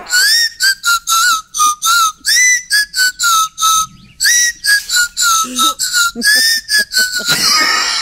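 A small pink plastic toy whistle blown as a tune of short, breathy notes, about two or three a second, stepping up and down in pitch with a few small slides.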